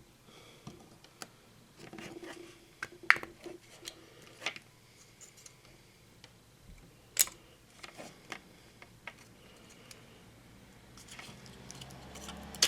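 Scattered clicks and taps of small hard parts being handled while a DDC pump is taken apart, the impeller and housing knocking as they are worked loose; the loudest clicks come about three and seven seconds in.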